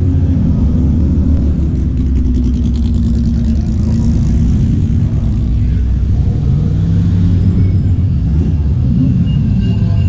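Classic racing-car engines running at low revs as the cars roll slowly past one after another: a silver Porsche 904 first, then a red front-engined GT car passing close near the end.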